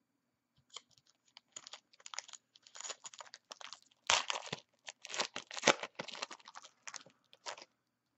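Foil wrapper of a Panini Prizm trading-card pack being torn open and crinkled by hand, in a string of irregular rustles and rips that are loudest about halfway through.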